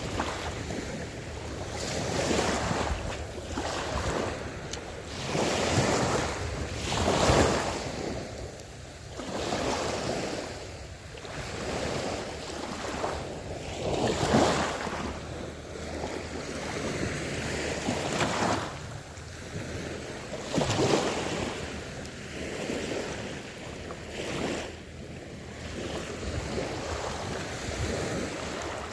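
Sea waves washing in with wind buffeting the microphone, the rushing noise swelling and fading every couple of seconds.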